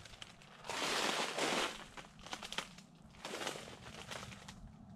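Footsteps crunching through a thin layer of snow over dry fallen leaves, an uneven walking pace, loudest about a second in and softer after.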